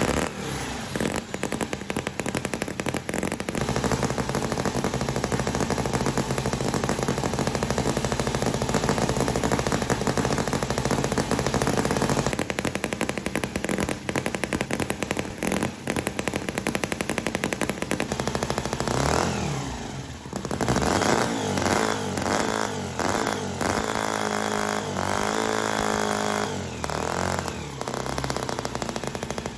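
V-twin engine running with a rapid, rattling firing beat, revved up and back down twice in the second half.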